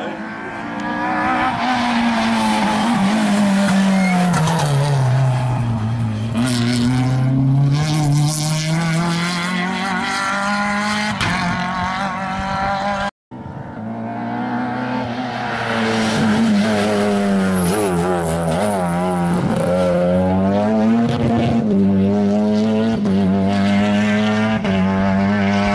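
Rally cars at full attack on a closed stage. The first car's engine note drops steadily as it slows for the bend, then climbs again as it pulls away; after a cut, a second car passes at high revs, its note dipping and rising several times.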